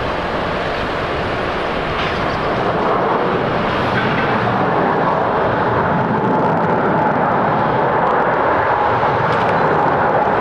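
Boeing 777-200 airliner's jet engines during its landing roll, a loud steady rush that grows louder about two seconds in. A thin steady whine comes in partway through.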